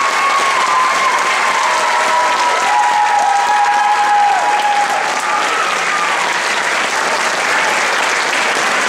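Large audience applauding steadily, with long drawn-out cheering calls rising above the clapping.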